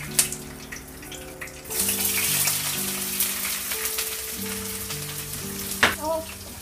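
Chopped vegetables and crushed hot peppers sizzling in hot oil in a wok on a gas stove, starting about two seconds in, over background music. A sharp knock comes near the end.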